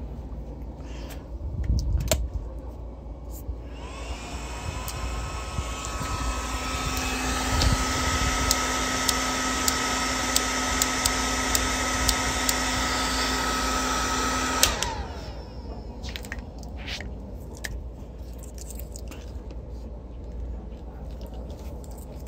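A small electric motor spins up with a rising whine about four seconds in and runs steadily for about ten seconds, with a few light ticks over it. It then cuts off and winds down.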